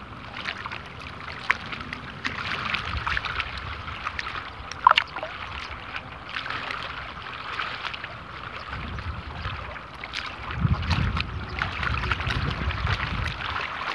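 Small waves lapping and splashing close by, a steady wash full of little ticks, with one sharp tick about five seconds in. From about nine seconds on, wind rumbles on the microphone.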